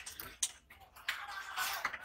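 Knife working on a large hamour (grouper): a single sharp tick about half a second in, then from about a second in a scraping hiss of the blade over the scales and skin.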